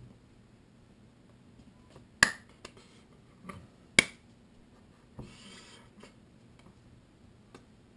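Finger snaps: two loud, sharp snaps a little under two seconds apart, with a few fainter clicks around them and a short rustle afterwards.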